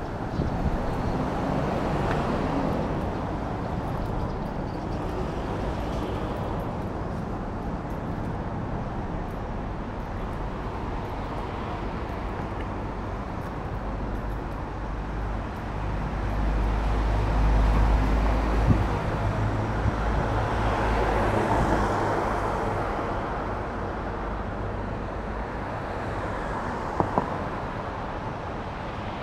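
Steady road traffic noise, swelling as a vehicle passes just past halfway through, with two short clicks near the end.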